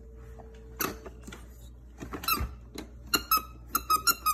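Squeaky toy knob on a baby walker's play tray, squeaking as it is pressed: a few scattered short squeaks, then a quick run of same-pitched squeaks near the end.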